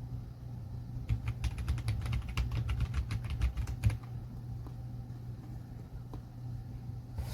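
Typing on an RK Royal Kludge M75 mechanical keyboard with red switches. A quick run of key presses starts about a second in and lasts about three seconds, over a steady low hum.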